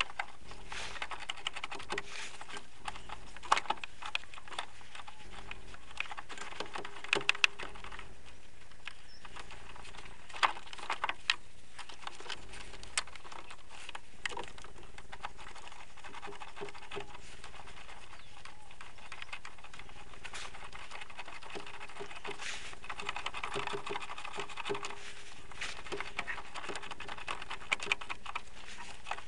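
Scattered clicks and light metallic knocks of a socket wrench and fittings being handled as a car battery's terminal connectors and retaining bracket are fitted, with rustling from gloved hands working in the engine bay.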